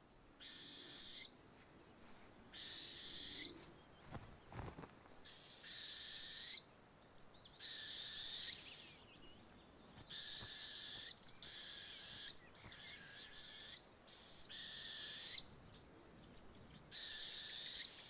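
Northern hawk owl fledglings begging for food: a series of high, hissing calls, each about a second long, repeated every second or two.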